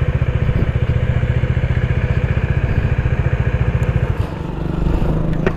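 Bajaj Dominar 400's single-cylinder engine running at low revs with a rapid, even exhaust beat. About four seconds in, the beat smooths out, and a couple of sharp clicks follow near the end.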